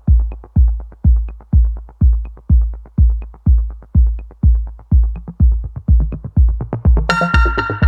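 Electronic background music: a heavy kick drum about twice a second with quick ticking hi-hats, joined by bright synth chords about seven seconds in.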